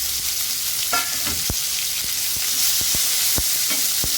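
Cluster beans sizzling in hot oil with mustard seeds and spices, stirred in the pan, with repeated short knocks of the stirring utensil against the pan.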